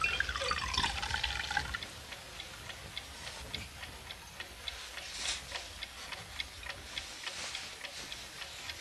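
Steady, even ticking, a few ticks a second, over soundtrack hiss. A brief wavering high tone sounds in the first two seconds.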